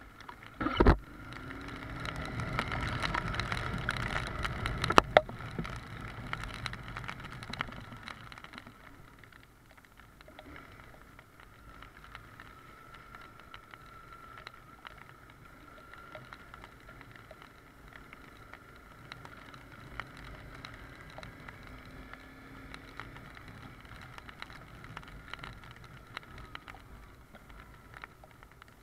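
Honda CBR250R single-cylinder motorcycle riding on a rain-soaked road, with steady engine, wind and wet tyre noise. A loud thump comes about a second in. A louder rush follows for several seconds, with a sharp click near the middle of it, before the sound settles to quieter, steady running.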